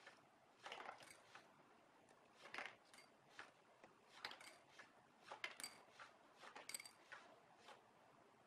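Small hard candy-coated sweets dropping down a cardboard chute into a bowl, a faint click and clink every half second to second, some clinks with a brief ring from the bowl, as the cardboard dispenser's card slider is worked in and out.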